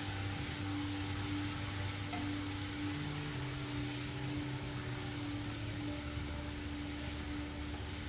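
Tomato sauce sizzling in a stainless steel pot as it is stirred with a wooden spoon, a steady hiss, under soft background music with a held tone and slowly changing bass notes.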